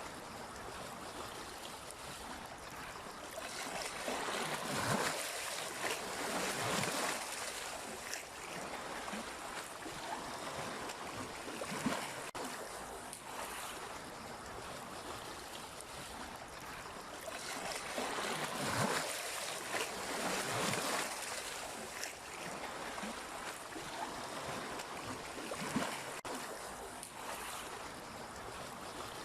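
Sea waves breaking and washing, a steady hiss of surf that swells louder twice, about four seconds in and again after eighteen seconds.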